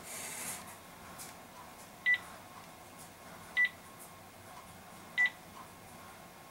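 A short, high electronic beep repeats three times, about every one and a half seconds, each beep a quick triple pulse. A short hiss comes right at the start.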